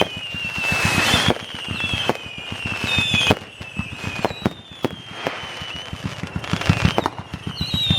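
Fireworks going off: a string of shrill whistles, each about a second long and falling slightly in pitch, over many quick crackling pops and bangs.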